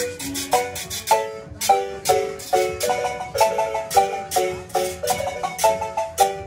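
Live marimba playing a quick melody in chords, with strummed guitars and hand percussion keeping a steady beat.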